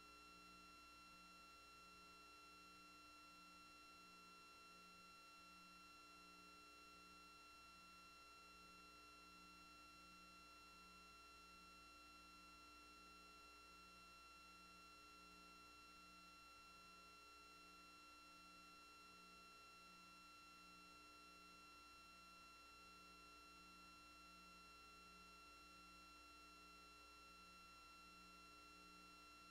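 Near silence: faint steady electronic tones and hum, with a faint low tone pulsing on and off at an even rate.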